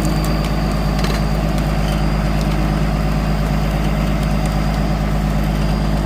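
Bulldozer's diesel engine running steadily, with a few faint clicks in the first second.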